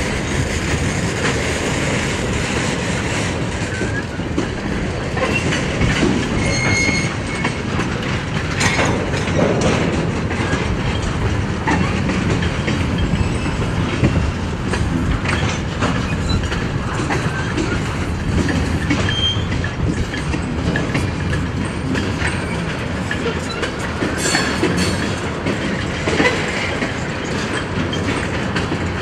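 Freight train of tank cars and boxcars rolling past: a steady rumble of steel wheels with clickety-clack over the rail joints, and a couple of brief high squeals.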